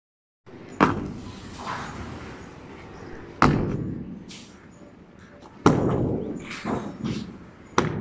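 Heavy long-handled tool striking a concrete floor slab four times, about two seconds apart, breaking it up; each blow is followed by a short clatter of broken concrete.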